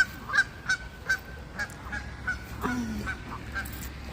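Waterfowl, an adult with its young, giving a steady series of short honking calls, about three a second.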